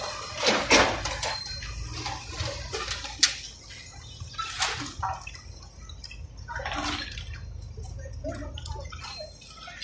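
JCB backhoe loader's diesel engine running, with irregular crunches and rattles of broken brick and metal debris on a demolition site, the loudest about half a second in.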